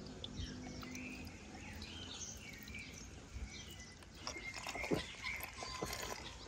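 Birds chirping and calling, over a faint trickle of juice pouring from a tap into a glass of ice.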